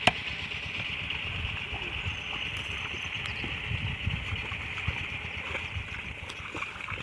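Wet mud sloshing as a long-handled hoe is dragged through a flooded rice seedbed, under a steady high hiss.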